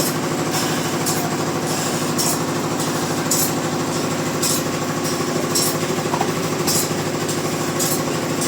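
An engine running steadily at an even speed, with a short hiss repeating about once a second.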